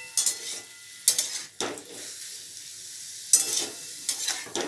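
Metal spatula scraping and stirring chopped tomatoes in a steel kadai over a steady sizzle, in a handful of strokes, the loudest about a second in and about three and a half seconds in. The tomatoes are being stirred until they give off their juice.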